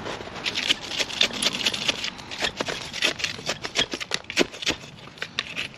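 Dense, irregular crackling and scraping as a plastic plant pot is worked and squeezed to free a root-bound plant whose soil has set rock-hard.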